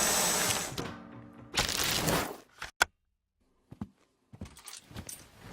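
Music from a promotional video, with sound-design effects: a loud whooshing swell with a thin high tone at the start, a second short swell, then a few sharp clicks around a brief dead silence.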